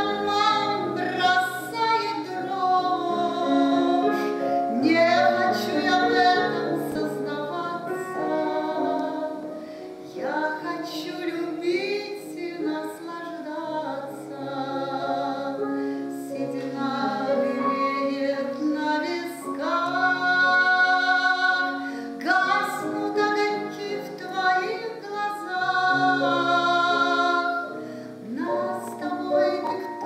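A woman singing a slow song with long held notes and vibrato, over steady low piano notes.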